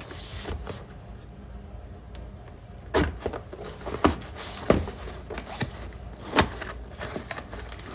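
A packed parcel being unpacked by hand: a few sharp knocks and crackles of the box and its packing material, starting about three seconds in, with softer rustling between.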